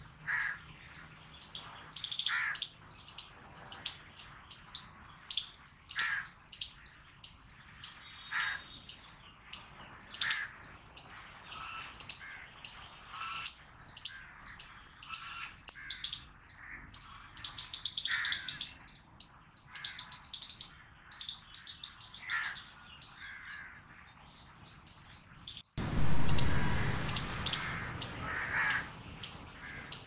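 Small striped squirrel (a chipmunk) chirping: sharp, high-pitched chips about twice a second, sometimes in quick runs. Lower calls come in between, and a low rumbling noise rises near the end.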